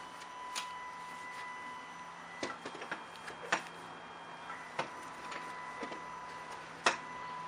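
NEMA 17 stepper motor driving a gantry plate along a V-slot linear rail, a steady high whine that fades for a couple of seconds in the middle. Sharp knocks and clicks come from a folding solar panel being lifted and handled, the loudest near the end.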